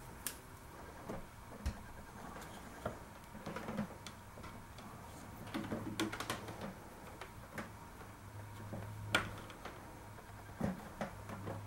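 Plastic hoses being handled and pushed into the water ionizer's fittings: scattered light clicks and taps with some rustling.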